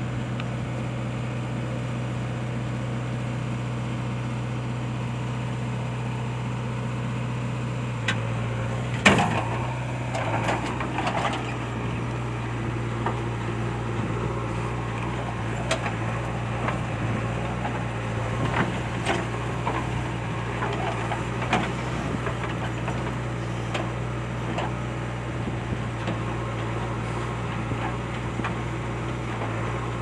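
JCB 3DX Xpert backhoe loader's diesel engine running steadily under working load. From about eight seconds in, scattered knocks and clatters of the digging bucket and falling soil clods come over it, the loudest a sharp knock about nine seconds in.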